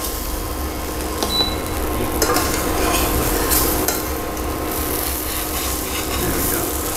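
Zucchini pancake batter sizzling in oil in a stainless steel frying pan, with a plastic spatula scraping under it and a few short scrapes and knocks against the pan in the middle.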